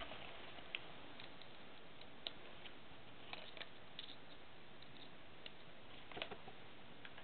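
Faint scattered clicks and rustles of hands handling an airsoft mask, its straps and plastic buckles, with a small cluster of taps about six seconds in, over a steady hiss.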